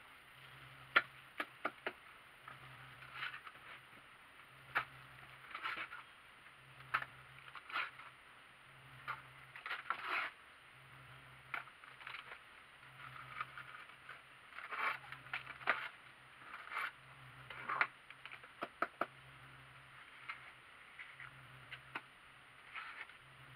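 Steel plastering trowel scraping and tapping against a hawk and wet render while a window reveal is plastered: an irregular string of sharp clicks and short scrapes. A faint low hum pulses on and off about every second and a half underneath.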